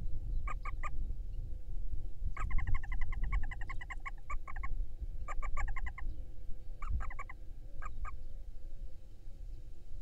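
Barn owl giving rapid chittering runs of short, clipped notes, about seven a second, in five bursts: a long run of about two seconds and several short ones of two to five notes, over a low rumble.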